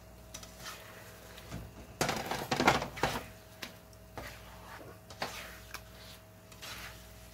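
Tongs stirring and scraping eggs with bacon and hash browns in a nonstick frying pan: about a second of busy scraping and clatter, then a few scattered light taps of the utensil against the pan, over a steady low hum.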